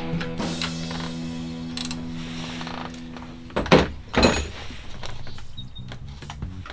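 Background music with steady held notes, over the clinks and clanks of hand tools on the generator's carburetor; two sharp metal knocks come a little over halfway, about half a second apart.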